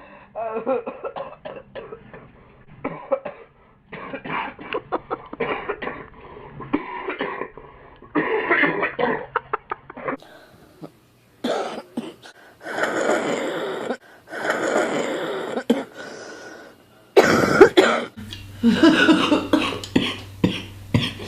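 Chesty coughing fits from several different people, one recording after another: runs of short coughs separated by brief pauses, with the loudest fit near the end.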